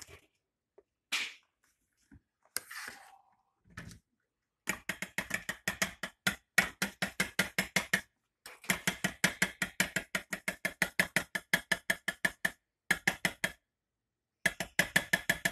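Rapid, evenly spaced mechanical clicking, about five clicks a second, like a ratchet being worked, running for several seconds at a time with short pauses.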